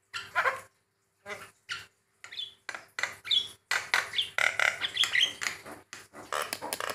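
Javan myna (white-vented myna) calling in a varied string of short, harsh squawks and chirps with a few whistled notes. The calls start out spaced apart, then turn into rapid continuous chattering about halfway through.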